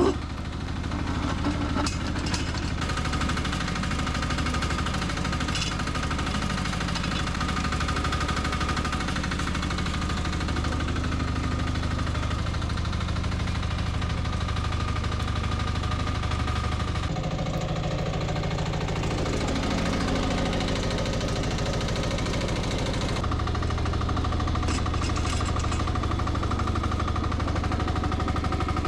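Engine of a 1-ton mini excavator running steadily while digging, its note changing for several seconds midway, with a few brief knocks.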